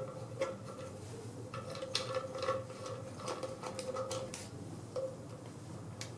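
A whip antenna being screwed by hand onto a threaded metal antenna connector of a cell-phone jammer: faint, irregular small clicks and light scraping of the threads and fingers on the metal case.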